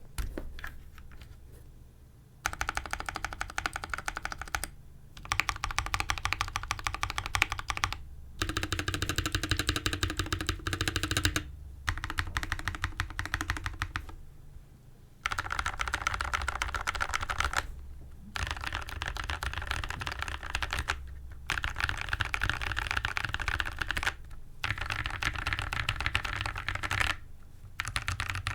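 Mechanical keyboard with PACO switches lubed with Krytox 205g0 and PBT cherry-profile keycaps, sitting on a desk mat, mashed rapidly at random: dense runs of key clacks a few seconds long, broken by short pauses.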